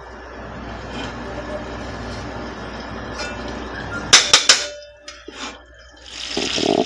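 Desi ghee sizzling as it melts in a hot pot, a steady hiss that grows a little, then three or four sharp metal clinks of a spoon against the pot about four seconds in.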